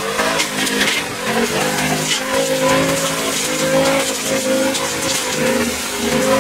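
Petrol brush cutter engine running steadily at high revs, its pitch wavering slightly as it cuts through grass and weeds.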